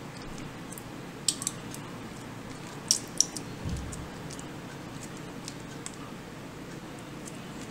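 Foil cheese-sauce pouch of a Velveeta shells and cheese kit crinkling as it is squeezed by hand, with a few sharp crackles a little over a second in and again about three seconds in, over steady background noise. A soft low thump comes just before the middle.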